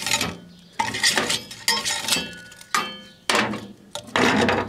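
Melted plastic floppy disks and the microwave's glass turntable plate knocking and clinking together as they are handled and taken out: about six sharp knocks with a brief ring, then a continuous scraping rattle near the end. The disks are fused to the plate.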